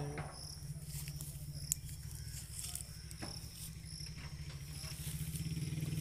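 Outdoor ambience: insects chirping in a high, even repeating pattern about twice a second over a steady low rumble, with a few faint sharp clicks.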